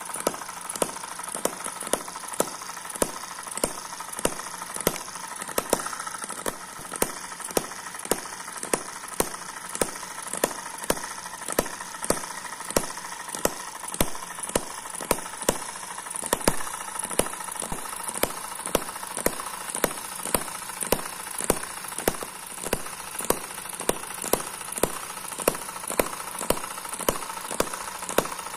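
Eachine EM2 miniature four-stroke vertical hit-and-miss engine running at low speed, with sharp regular beats about twice a second over a steady mechanical running noise.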